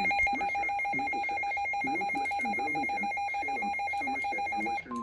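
Emergency alert tones: a rapidly pulsing electronic beep, about ten pulses a second, stops near the end. A steady single-pitched tone takes over, the National Weather Service attention signal that comes before a warning message.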